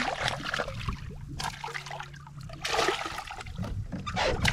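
Water splashing and trickling around a fishing boat, with a faint steady low hum through the first half.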